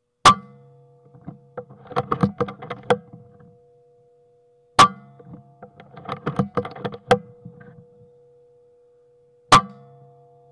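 Three sharp .177 air rifle shots about four and a half seconds apart. After each of the first two comes a second or two of scattered clicks and rattles.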